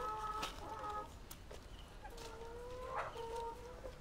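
Chickens calling faintly: a long, drawn-out call that ends about a second in, then another from about two seconds in that breaks off after about a second and a half.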